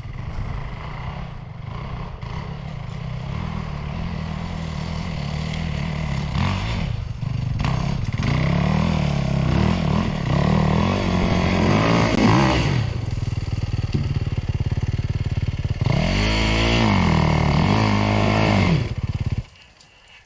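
Off-road dirt bike engine revving up and down repeatedly under load on a hill climb, its pitch rising and falling over and over. The engine sound stops abruptly near the end.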